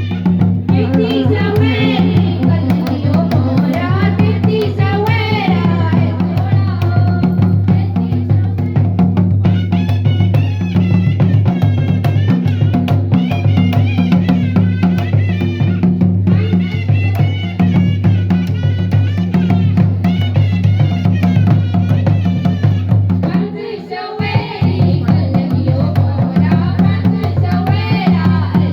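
Folk-style music with drums and a melody line. It drops out briefly about 23 seconds in, then resumes.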